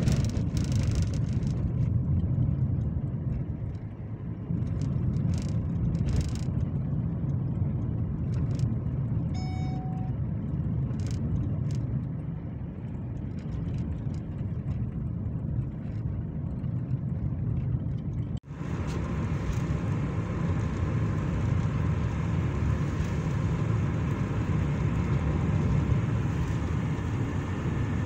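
Car road noise heard from inside the cabin while driving: a steady low engine and tyre rumble, with a brief tone about ten seconds in. After an abrupt cut about eighteen seconds in, the noise turns brighter and hissier, wet-road tyre noise with rain on the windscreen.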